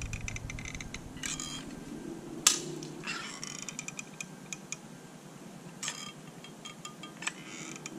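Small handling noises from a sealant cartridge and a plastic camera mount: scattered clicks and brief squeaks of plastic, with one sharp click about two and a half seconds in as the loudest.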